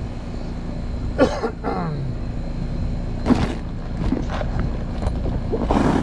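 Steady low hum of a running Trane heat pump outdoor unit, its compressor and condenser fan. About a second in there is a short sound that falls in pitch, and a little after three seconds a sharp click.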